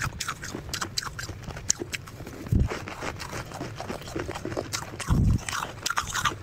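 Soft freezer frost being bitten and chewed: a dense run of crisp crackling crunches, with two heavier, deeper bites about two and a half and five seconds in.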